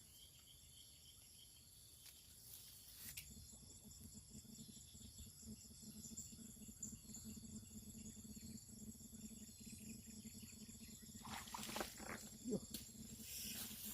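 Faint, steady high-pitched chirring of insects in the background.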